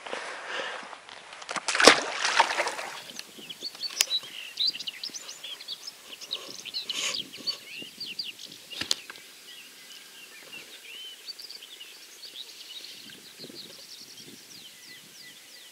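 Water splashing and sloshing for the first couple of seconds as a keepnet of carp goes into the pond, with one sharp knock at its loudest point. After that, nightingales sing quick chirps and trills, with a couple of single knocks in between.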